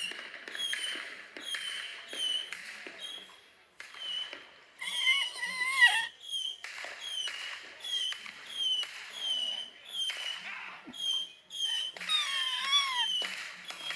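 High-pitched squeaking played from a video: a steady run of short, falling chirps, about one and a half a second. Two longer wavering, whine-like cries come about five seconds in and again near the end.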